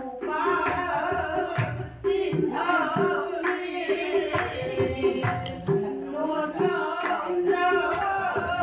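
Women singing a song together, with a steady percussion beat and a held instrumental note underneath.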